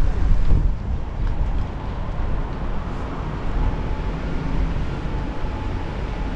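Ford Transit camper van driving slowly, heard as a steady low rumble of engine and road noise.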